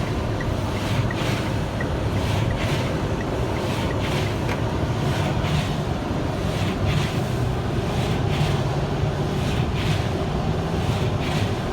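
Steady engine and road noise inside the cabin of a Kia Sorento driving in four-wheel drive through deep snow, with a low hum and faint hissing swishes repeating about twice a second.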